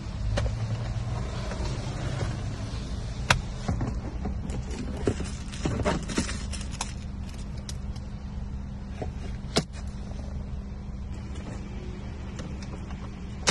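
Scattered clicks, knocks and scrapes of pliers and a long metal rod being poked into the gap between a car seat and the centre console, against plastic trim and seat rails, with some rustling. A steady low hum runs underneath.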